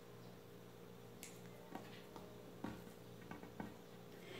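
Faint, irregular snips of kitchen scissors cutting a rope of bread dough into small pieces, a few quiet clicks about half a second apart, over a low room hum.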